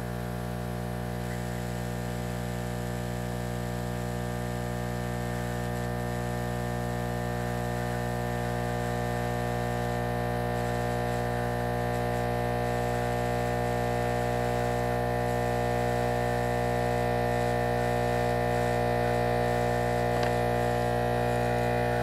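Hot air rework station running while it heats the connector: a steady electrical hum made of a stack of even tones, growing slowly a little louder.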